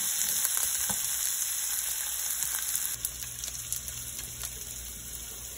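Steak, peppers, onions and pineapple sizzling in a pan with butter-garlic sauce, with a spatula clicking and scraping against the pan as it is stirred. About three seconds in the sizzle gets a little quieter and a low steady hum comes in.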